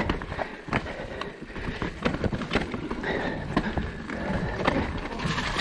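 Mountain bike ridden over rough, rooty ground: a rapid, irregular clatter of knocks and rattles from the bike, over a steady low rumble of wind on the microphone.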